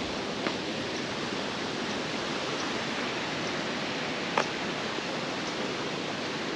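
Steady rush of falling and flowing water from the Ouzoud waterfalls, with a single short click about four and a half seconds in.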